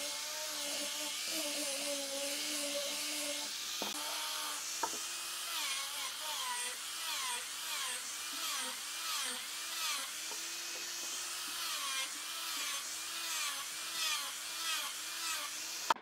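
Angle grinder with a sanding disc sanding a curved wooden piece. The motor whine holds steady at first, then from about five seconds in it dips and recovers in pitch again and again, under the hiss of the abrasive on the wood. It cuts off suddenly at the end.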